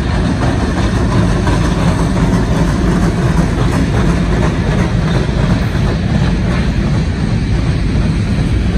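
Diesel freight locomotive running as it rolls past at close range, a steady loud low rumble, with a covered hopper car coming by behind it near the end.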